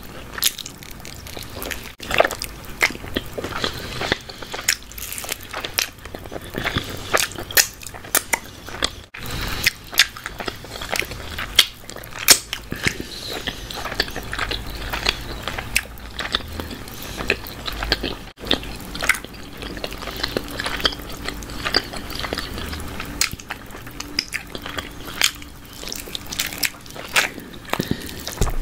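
Chewing and biting into a barbecue chicken drumstick close to the microphone, with frequent sharp, irregular clicks.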